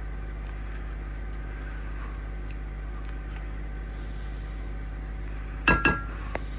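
A metal utensil clinks sharply twice against a dish, ringing briefly, with a lighter tick just after, over a steady low hum.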